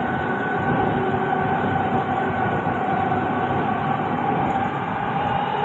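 Metro train running, heard from inside the passenger car: a steady rumble and rush of wheels on rail with a steady whine running through it.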